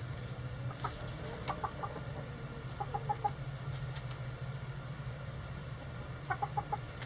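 Hens clucking in short runs of three or four quick clucks, three times, over a steady low hum.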